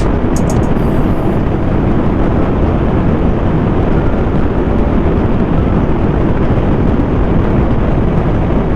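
Motorcycle riding at speed: a loud, steady rush of wind noise over the microphone mixed with the engine running.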